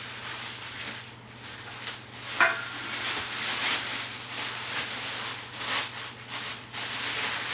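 Plastic packaging wrap crinkling and rustling in uneven bursts as it is pulled and torn off taped-up equipment.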